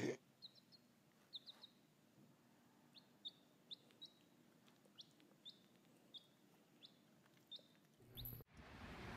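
A baby chick peeping: short, high, faint peeps, about two a second, some coming in quick pairs.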